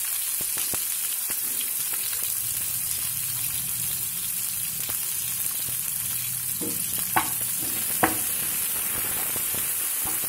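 Chopped onion, green chillies, mustard seeds and cumin sizzling steadily in a little oil in a nonstick frying pan, with small crackles throughout. A little after halfway the spatula stirs the onions and knocks twice sharply against the pan.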